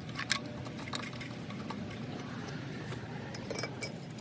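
Scattered metallic clicks and clinks of lug nuts and hand tools as a car wheel's lug nuts are put back on, over a steady low background hum. A small cluster of clinks comes about three and a half seconds in.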